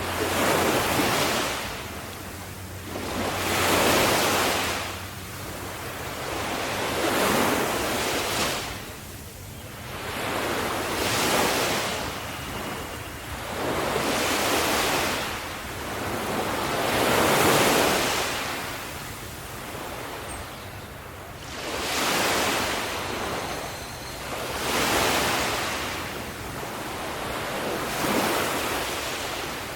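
Sea waves breaking and washing onto a shore, each one swelling up and falling away, about every three to four seconds.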